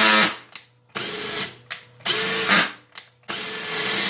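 Makita 18 V LXT brushless drill driver running in its high-speed setting (speed 2), the motor whining in four short bursts as the trigger is pulled and let go, rising in pitch at the start of each.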